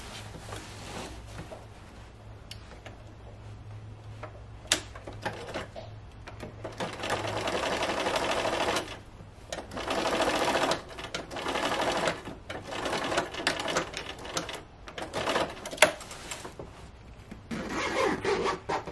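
Bernina sewing machine stitching an invisible zipper into heavy slipcover fabric in several short runs, stopping and starting as the fabric is guided. There are two sharp clicks between the runs.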